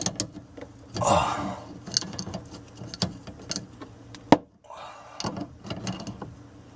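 Scattered metallic clicks and knocks of a wrench working on the water-line fittings under a sink, with one sharp click about four seconds in.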